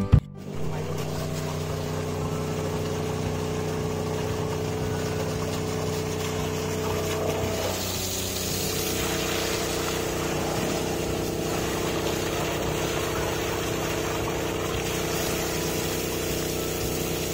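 Water gushing from a hose into a concrete garden pond as it is refilled, with a steady mechanical hum underneath. The splashing grows louder about halfway through.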